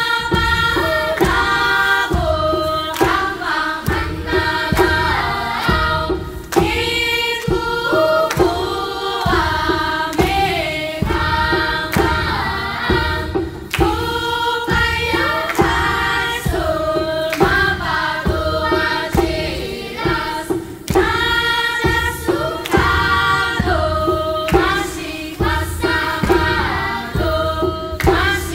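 Choir singing: several voices carry a melody over a held low note, with a steady low beat under it.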